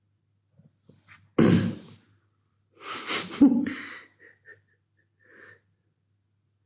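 A man ill with COVID-19 sneezing hard twice, about a second and a half in and again around three seconds, followed by a few faint short sounds.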